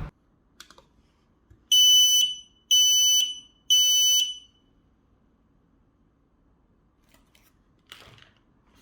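X-Sense XS01-WT Wi-Fi smoke alarm sounding its test alarm: three loud, high-pitched beeps of just over half a second each, about one per second, starting about two seconds in. This is the three-beep pattern of a smoke alarm, showing the unit works.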